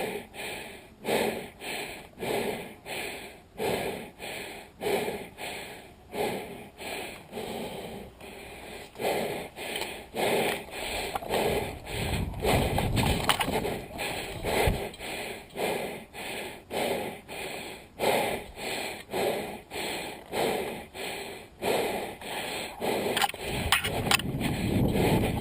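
A person breathing hard and fast close to the microphone, in an even rhythm of loud breaths: out-of-breath panting from running.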